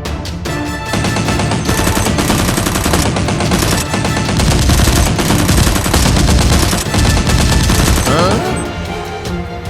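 Rapid automatic gunfire: a dense, continuous run of shots starting about a second in and stopping near the end, over background music.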